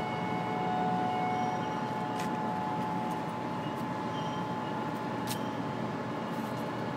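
Coal train cars being moved through the yard: a steady mechanical hum with a high whine running throughout, and a couple of faint clicks.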